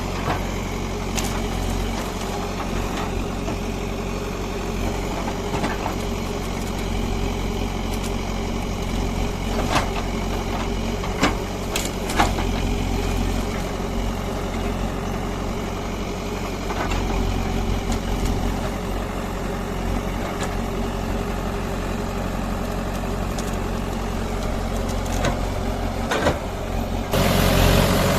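JCB 3DX backhoe loader's diesel engine running steadily, with a few sharp knocks now and then. Near the end the sound turns suddenly louder and harsher.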